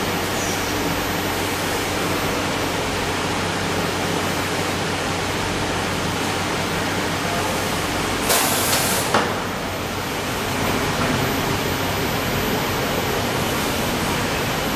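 HR 15 kVA moving PVC tarpaulin welding machine running with a steady noisy hum. About eight seconds in, a louder hiss lasts under a second and ends in a click.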